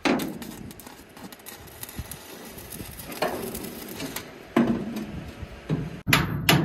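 Scattered metal knocks and clanks from work on a truck's steel cargo body, with a long bar levered against the deck rail: a loud knock right at the start, more about three and four and a half seconds in, and two quick ones near the end.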